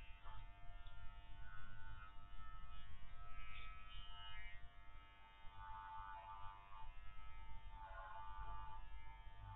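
Electric dog-grooming clippers running with a steady buzz while trimming a curly dog coat, the sound turning rougher a few times as the blades work through the hair.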